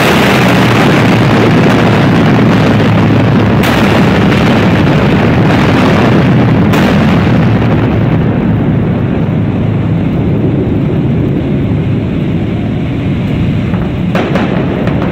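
Loud, sustained rushing roar of an explosion's blast of air and dust through a tunnel, holding steady and easing only slightly, with a few brief crackles.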